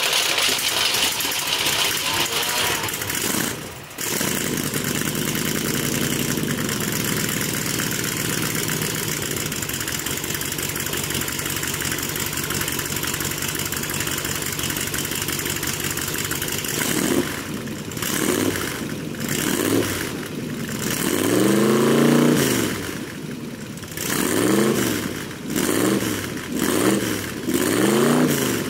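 Ford 289 cubic-inch V8 running through open side pipes, idling steadily, then blipped repeatedly from a little past halfway: about seven quick revs that rise and fall back to idle, the biggest near the end.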